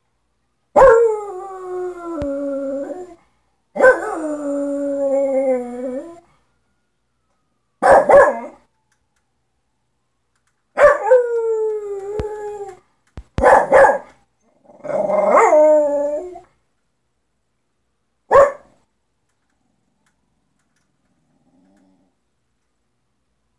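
A small dog howling in response to sirens: about four long howls, each sliding down in pitch, broken by short yips and barks, the last a single short cry about eighteen seconds in.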